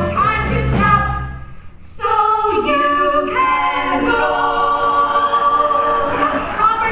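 Four women's voices singing a stage-musical number in close harmony. The band's bass drops out about a second and a half in; after a short gap the voices come back and hold a long sustained chord.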